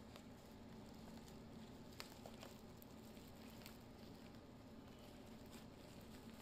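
Faint handling noises as a plastic bubble mailer and cardboard cable boxes are opened and pulled out: scattered small clicks and rustles, the sharpest tick about two seconds in, over a low steady hum.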